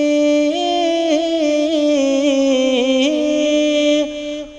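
A man's voice singing a naat, holding one long note and then drawing it out in a melismatic run that winds up and down, before dropping away near the end.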